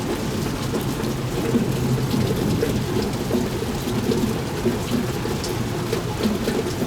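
Heavy rain falling in a thunderstorm, with a low, steady rumble underneath.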